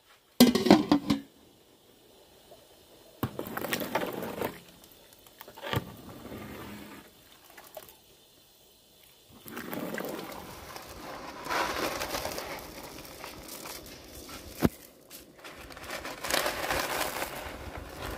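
A metal ladle stirring a large aluminium pot of ash soup, scraping and knocking on the pot with the liquid sloshing, in several separate spells with one sharp click about fifteen seconds in. Near the end, dry broken noodles rustle as they are poured in from a cardboard box.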